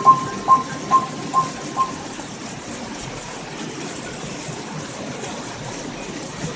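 Rushing floodwater, a steady noise. Over the first two seconds a ringing tone repeats about twice a second and fades away.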